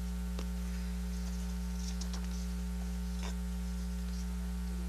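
Steady low electrical mains hum on the meeting's sound system, with a few faint, scattered clicks and taps over it.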